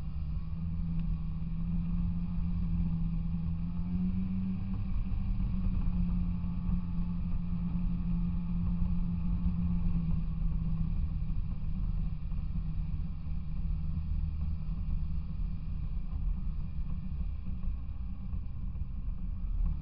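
Snowmobile engine running while riding, a steady engine note over a low rumble; the note lifts briefly a few seconds in and fades out about halfway through, leaving the rumble.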